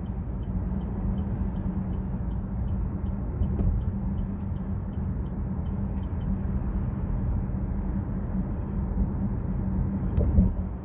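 Steady road and engine noise inside the cabin of a 2024 Chevrolet Trax Crossover driving at expressway speed: a low rumble and hum, with a faint, regular ticking about three times a second. A short click with a small bump comes near the end.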